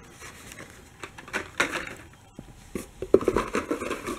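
Hot Wheels cars in plastic blister packs on cardboard cards being handled and shuffled: a run of light clicks, taps and plastic rustles, busier in the last second or so.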